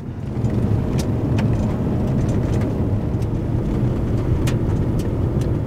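Toyota RAV4 driving up an unpaved gravel road, heard from inside the cabin: steady low road and tyre noise with the engine under it, and a few sharp ticks.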